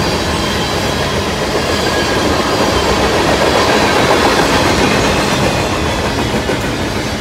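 Mixed freight train's cars (tank and hopper cars, a boxcar, double-stack container cars) rolling past close by: steel wheels running steadily on the rails.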